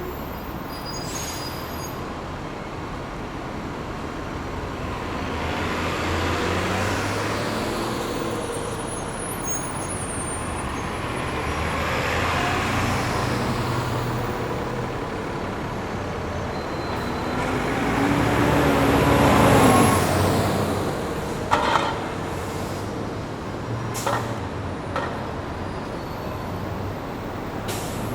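Bus station ambience: large bus engines running and passing, swelling and fading several times, loudest about two-thirds of the way through. Several short, sharp sounds follow near the end.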